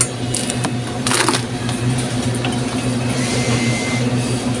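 Steady low electrical hum with scattered clicks and rattles from a shopping cart and the groceries being handled in it, and a short rustle about a second in.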